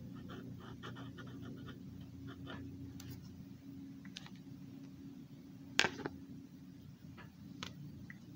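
Black Sharpie marker scratching across paper in a quick run of short strokes for the first couple of seconds. Then comes a handful of separate sharp clicks and taps, the loudest a little past halfway, over a steady low hum.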